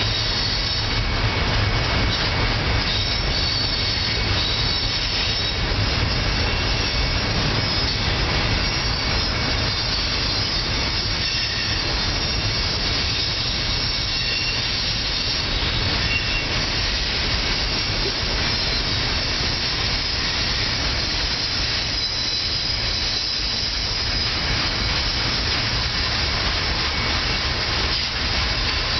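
Double-stack container train rolling past: a steady rumble of steel wheels on rail, with thin high wheel squeal above it.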